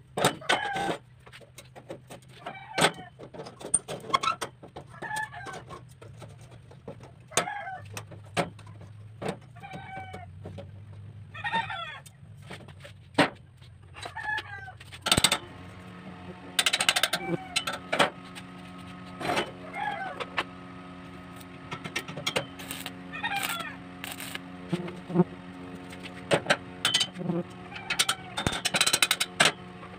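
Chickens calling repeatedly, short clucking calls every second or two, over sharp clinks and knocks of steel tubing being handled on a steel worktable. A steady low hum comes in about halfway.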